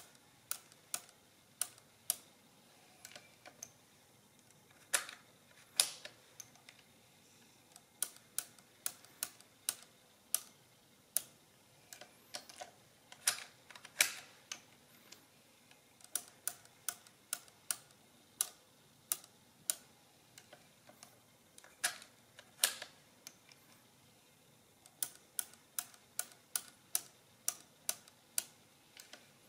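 Monroe Model K mechanical calculator's mechanism clicking as its stepped drums and gears turn: a run of sharp metallic clicks, often about two a second with short pauses between runs.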